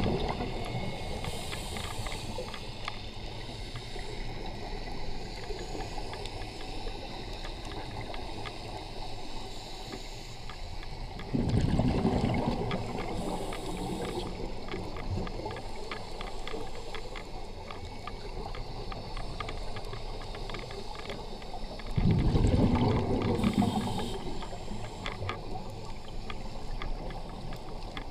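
Underwater sound of a scuba diver's breathing: two bursts of exhaled bubbles from the regulator, about eleven seconds apart, near the middle and about three-quarters through, with brief hissing inhalations, over a steady crackle of faint clicks.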